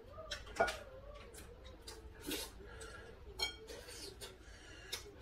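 Metal chopsticks and a spoon clicking against dishes while food is eaten, with several separate sharp clicks and a faint wavering tone underneath.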